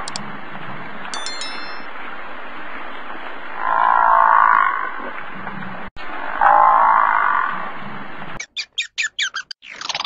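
Animal calls, two of about a second each over a steady background hiss, followed near the end by a quick run of sharp chirps.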